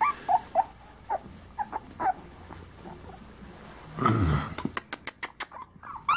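Young beagle puppies whimpering in short, high squeaks, several in the first two seconds. About four seconds in comes a louder, lower sound, followed by a quick run of clicks.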